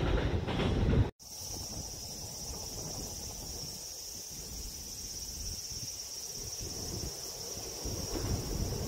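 Passing train noise that cuts off abruptly about a second in, followed by a steady high insect trill over a low rumble of wind, which grows a little louder near the end.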